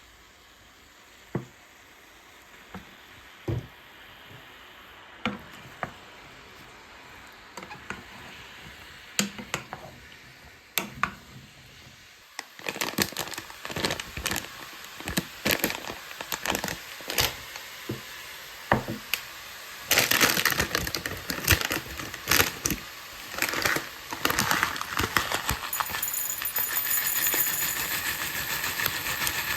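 Kitchen clinks and taps of utensils, then from about twelve seconds in food frying in a pot, a steady sizzle with frequent clicks and scrapes of stirring.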